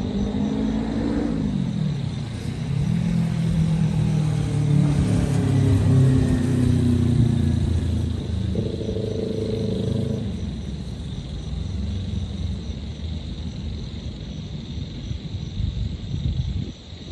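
City road traffic: engines of passing vehicles over a steady low rumble. One engine drops in pitch about a second in, a low engine drone swells to its loudest around the middle, and a higher engine note sounds for a couple of seconds just past halfway.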